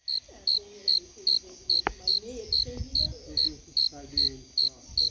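A cricket chirping in a steady rhythm, about two to three short high chirps a second, with faint voices murmuring underneath.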